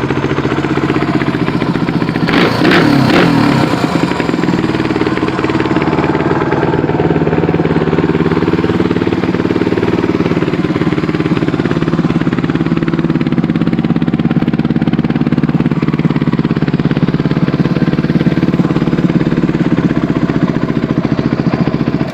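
Single-cylinder four-stroke engine of a 1993 Suzuki DR250 Djebel thumper idling steadily through an FMF exhaust, with a short rise and fall in pitch about two to three seconds in. It cuts off suddenly at the very end.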